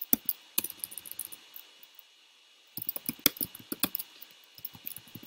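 Typing on a computer keyboard: two quick runs of key clicks with a pause of about a second in between.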